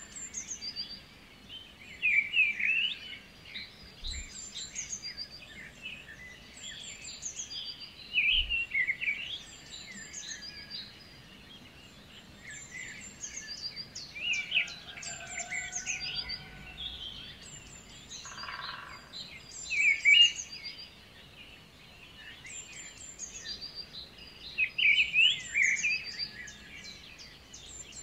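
Birdsong: birds chirping and calling, with quick high, thin trills among them and louder bursts of calls every few seconds.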